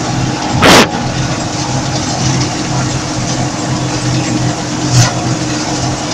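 Combine harvester running while cutting wheat, heard from inside the cab as a steady engine and machinery drone. A loud, sharp knock comes just under a second in and a lighter one about five seconds in.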